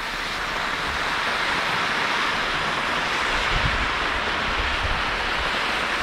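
Torbellino fireworks burning together as a ground fountain, giving off a steady, even hiss as they spray sparks.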